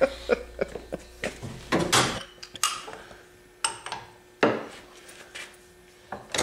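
Steel sockets and a socket extension clinking and knocking on a wooden workbench as they are handled and fitted onto a bolt of a compressor crankcase, in a few separate knocks, the loudest about two seconds in and again past halfway.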